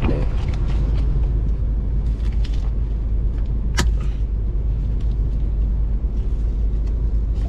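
Steady low rumble of a road vehicle under way, engine and tyres heard from on board, with a single sharp click or knock about four seconds in.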